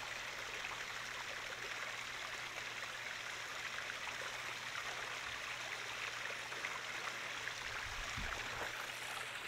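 Flowing water in a stream: a steady rush with many small splashes.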